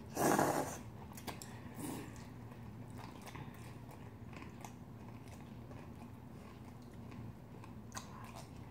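A loud slurp of cold buckwheat noodles right at the start, and a shorter slurp about two seconds in. After that comes quieter chewing with small wet clicks and smacks.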